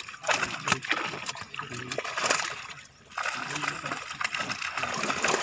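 Water splashing and trickling in a net of live fish in shallow water as the fish are lifted out by hand, a scatter of short splashes with a brief lull about three seconds in.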